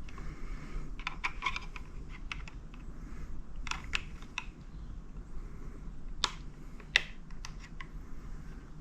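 Irregular small clicks and taps of a screwdriver prying at the plastic turn-signal button and switch housing on a motorcycle handlebar, with one sharper click about seven seconds in.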